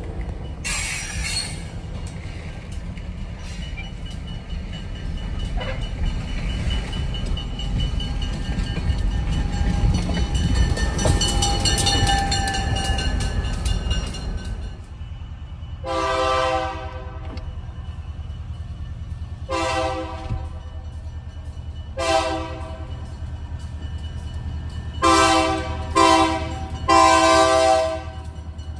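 Pickup truck driving, with road rumble rising to about twelve seconds in. Then a diesel locomotive's air horn sounds the grade-crossing signal: two long blasts, a short one, and a final long one broken into several pulses, over a low steady hum.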